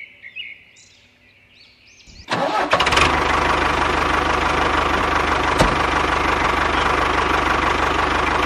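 Faint high chirps, then about two seconds in a small motor starts up and runs steadily and loudly.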